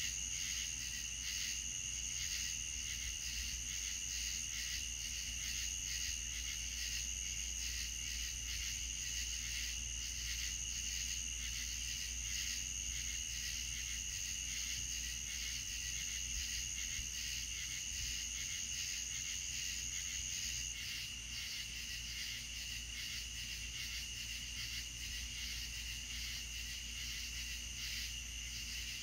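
Night insects trilling steadily at two pitches, the higher trill stopping about two-thirds of the way through, over a steady low hum.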